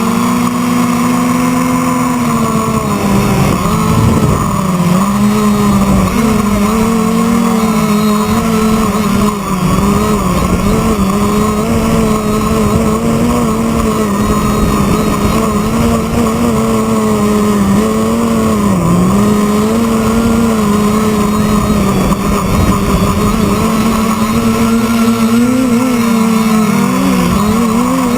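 Quadcopter's electric motors and propellers buzzing in flight, a steady hum whose pitch wavers up and down with the throttle and dips briefly a few times, over a rough low rumble.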